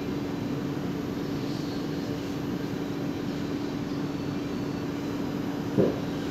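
Cabin noise of a Kawasaki Heavy Industries & Nippon Sharyo C751B metro train slowing to a stop at a platform: steady running noise with a constant hum, and a single knock near the end.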